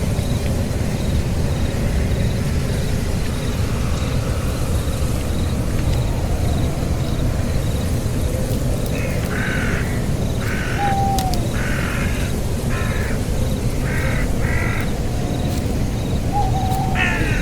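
An animal, likely a bird, giving a series of short harsh calls, about seven, roughly a second apart, starting about halfway through. A steady low rumble runs underneath.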